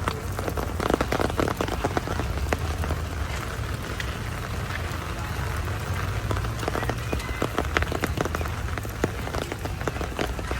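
Heavy rain falling steadily, a dense hiss full of sharp individual drop hits, over a constant low rumble.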